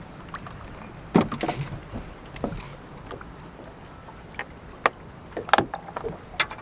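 Several sharp knocks and clicks at uneven intervals, from a landed bass being handled and unhooked against the boat, over a steady low hiss of wind and water.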